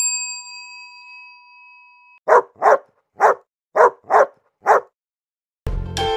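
A bell-like chime rings out and fades, then a dog barks six times in quick succession, in pairs. Music starts near the end.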